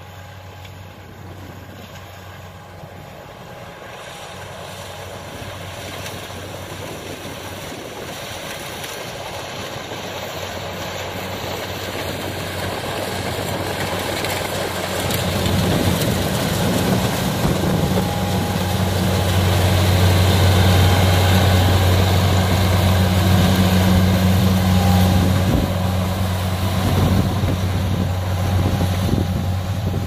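Kubota DC70 combine harvester running as it cuts standing rice: a steady low engine hum with a rushing mechanical noise above it. It grows steadily louder as the machine comes close and is loudest a little past the middle.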